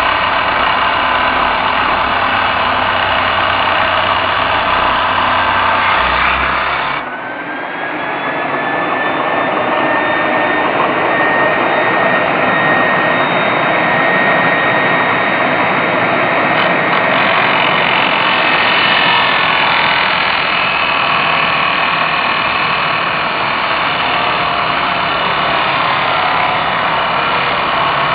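A handheld electric power tool cutting steel stock: a loud, steady motor and cutting noise. About seven seconds in it dips briefly, then the motor's whine climbs a little in pitch as it spins back up and runs on.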